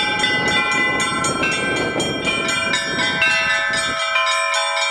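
Orthodox church bells being rung: several small bells struck in quick, regular succession, about three to four strikes a second, their tones ringing over one another. A low rumble runs underneath and stops suddenly about four seconds in.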